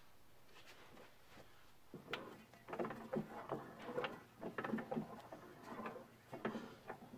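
Sleeves of a Willys-Knight sleeve-valve engine being slid and worked by hand in the open block. After about two seconds of quiet there is an uneven run of light metallic clicks and clunks, some of them ringing briefly.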